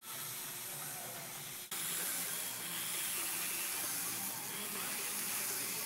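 A steady hiss, with a brief dip and a small jump in level a little under two seconds in.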